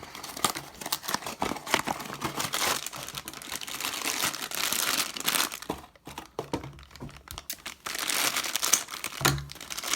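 Cardboard blind-box packaging being torn open by hand and crinkled, an irregular run of crackling and tearing with a brief lull about six seconds in.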